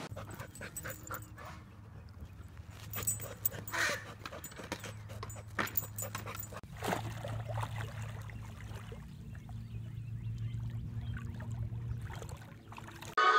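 A dog digging into grass and soil: scattered scratching and scuffing of paws in dirt over a faint low hum.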